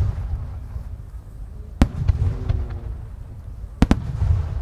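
Large aerial firework shells (No. 5, about 15 cm) going off in sharp bangs: one about two seconds in and a quick double bang near the end, over a continuous low rumble of booms.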